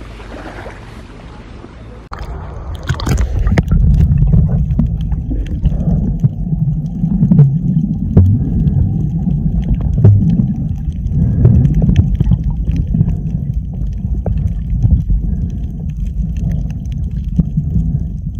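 Small waves lapping on a sandy beach, then, about two seconds in, the loud muffled low rumble of a phone recording underwater while snorkelling, with bubbling and scattered clicks and knocks of water moving against the phone.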